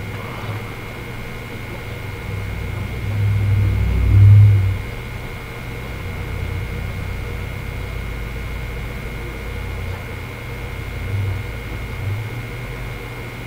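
Steady hiss and electrical-sounding hum with several constant tones, and a low rumble that swells up about three to five seconds in and briefly again near eleven seconds.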